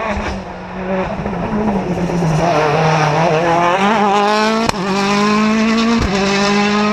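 Rally car engine at a tight corner: the engine note falls, then climbs as the car accelerates through the bend, with a sharp crack partway through and a quick break in the note for an upshift near the end.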